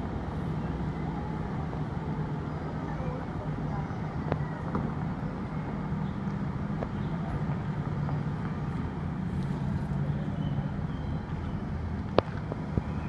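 Diesel engine of a Ceres Tours coach running steadily at low speed as the bus manoeuvres, a low drone heard muffled, with a few sharp clicks, the loudest near the end.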